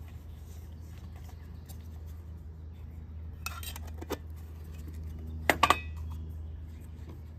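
Small metal char tin being handled and its lid pressed on, with a few light metal clicks around three and a half seconds in and a sharper cluster of metal-on-metal clinks about five and a half seconds in. A steady low hum runs underneath.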